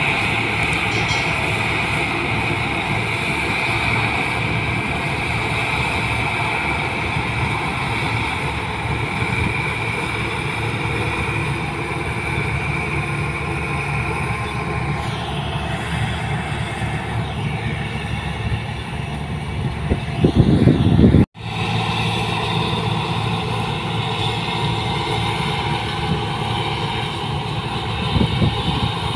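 New Holland 1545 rice combine harvester running steadily at work in the paddy, with a high steady whine over the engine in the first half. About twenty seconds in there is a brief louder low rumble, and then the sound cuts out for an instant before the machine sound resumes.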